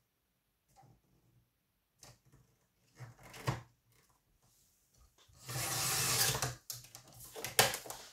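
Paper being handled and cut into a strip: a few soft taps, then a longer scraping rustle a little past halfway and a couple of sharp clicks near the end.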